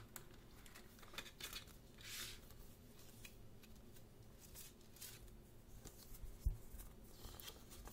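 Faint handling noises: a plastic CD jewel case clicking and a paper photo sheet sliding and rustling as it is taken out. A soft thump comes about six and a half seconds in.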